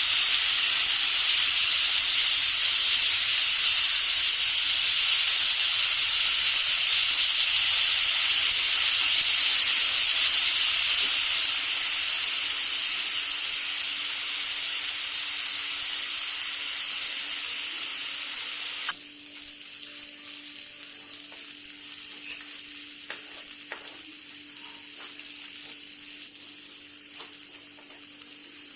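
Chopped tulsi (holy basil) leaves sizzling loudly in hot oil in a pan, the hiss easing slowly as they fry. About nineteen seconds in the sizzle drops suddenly to a quieter frying, with a few taps of the spatula as the leaves are stirred.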